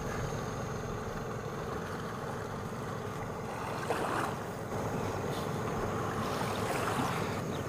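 Steady, fairly quiet outdoor ambience by a river: an even hiss of wind with a faint steady hum underneath.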